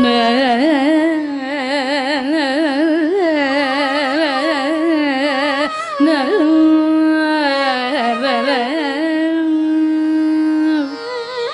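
A woman's voice singing Carnatic music in raga Bhairavi, with fast oscillating ornaments on each note for the first half. About halfway through it settles into one long, steady held note, resting on a halting note of the raga.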